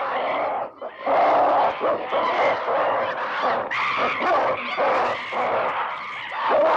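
Ape-men creature calls built from chimpanzee and baboon recordings: loud, nearly continuous ape-like calls whose pitch bends up and down, with a short break about a second in.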